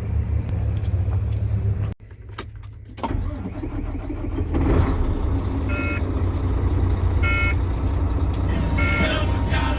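Vehicle engine running with a steady low rumble, cut off briefly about two seconds in, with several short high-pitched beeps in the second half.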